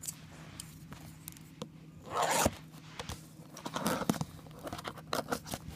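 Plastic shrink wrap on a sealed trading-card box being picked at and torn by hand: small crinkles and clicks, with a louder tearing rip about two seconds in and another just under two seconds later.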